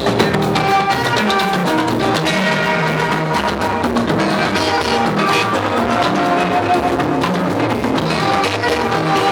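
Music: pitched notes over a steady drum beat.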